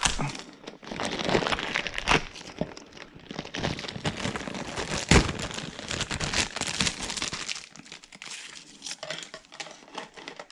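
Product packaging being opened and unpacked by hand: crinkling and rustling with a few sharp knocks. The handling goes quieter and sparser for the last few seconds.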